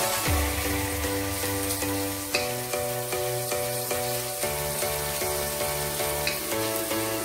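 Food frying in a pan with a steady sizzle, under background music with a bass line and chords changing every second or so.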